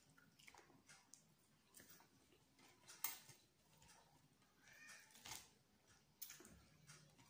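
Faint close-up eating sounds of a person chewing and smacking on fried chicken and rice eaten by hand, with small scattered clicks and one sharp click about three seconds in. A brief faint high-pitched squeak sounds near five seconds.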